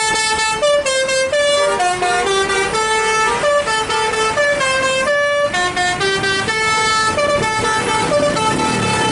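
Bus's Basuri 'telolet' musical air horn playing a fast tune of stepped notes, at times two notes sounding together.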